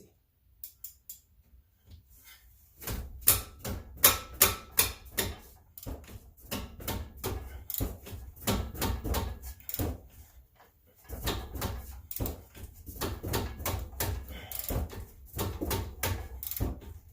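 Ratchet wrench clicking in repeated back-and-forth strokes, several sharp clicks a second with short pauses, as a 14 mm brake caliper bolt is worked loose.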